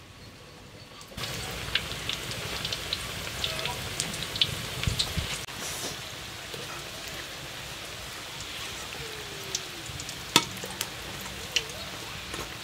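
Busraq dough pieces frying in hot oil in a wide metal pan, a steady sizzle with crackling that starts about a second in and is busiest over the next few seconds. A few sharp clicks of a metal skimmer against the pan come later, the loudest about ten seconds in.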